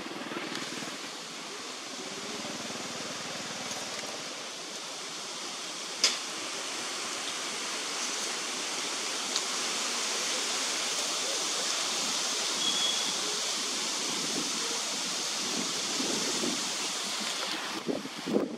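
Steady outdoor hiss that swells slowly and then eases, with one sharp click about six seconds in.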